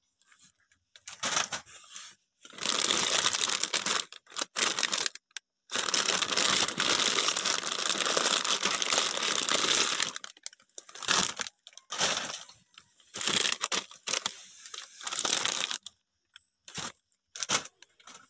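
Plastic snack-bag wrappers and coffee sachets crinkling as they are moved about by hand, in irregular bursts with short silent breaks: one long stretch of handling from about two to ten seconds in, then shorter bursts.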